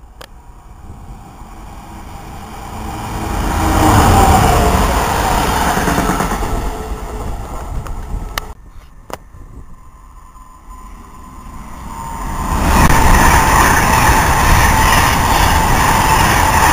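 Trains running through stations: one rises to a loud rumble, fades, and after an abrupt cut a second rises again, carrying a steady whine with its rumble.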